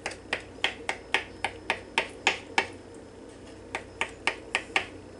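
Kitchen knife chopping hard-boiled eggs on a plastic cutting board: quick sharp knocks of the blade against the board, about four a second, with a pause of about a second in the middle.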